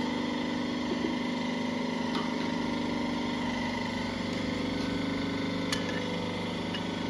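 Hydraulic crimping machine's pump motor running with a steady hum while it clamps the air suspension strut's aluminium ring onto the rubber bellows; a few light clicks come through.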